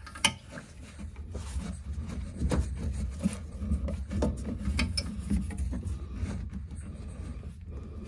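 Irregular small clicks, scrapes and knocks of a screwdriver working a worm-drive hose clamp and a rubber fuel hose being pulled off a mechanical fuel pump, over a low steady rumble.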